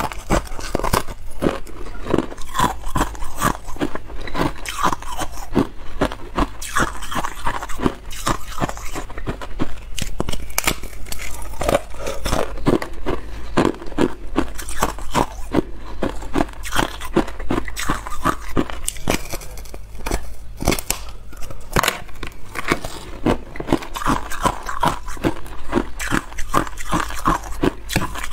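Thin sheet of balloon ice being bitten and chewed: continuous crunching and crackling, with many sharp cracks close together.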